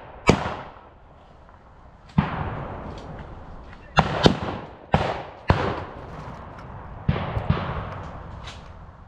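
Reenactors' blank-firing rifles shooting: about eight sharp shots at irregular intervals, each trailing off in an echo, the loudest pair about four seconds in.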